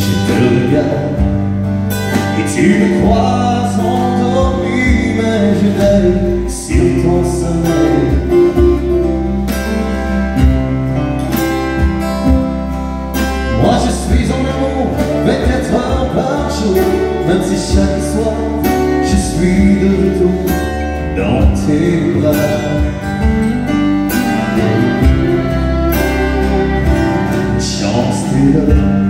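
Live country music: a strummed acoustic guitar and a fiddle playing together.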